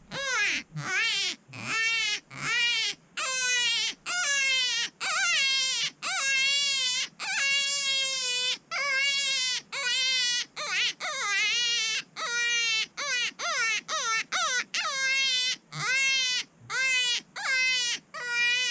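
Electronic predator call playing a prey distress sound to lure coyotes: a long string of loud, wavering, crying wails, about one a second, many dropping in pitch at the end.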